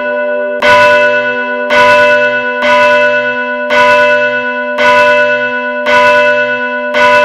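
A large tower bell tolling at a slow, even pace of about one stroke a second, seven strokes in all, each stroke ringing on into the next.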